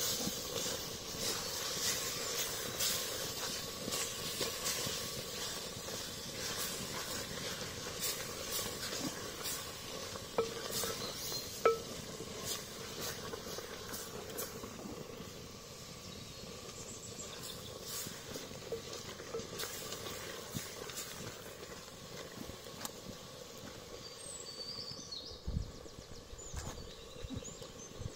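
Chicken curry boiling in a clay pot over a wood fire: a steady bubbling hiss with scattered sharp clicks, thicker in the first half, and a couple of low thumps near the end.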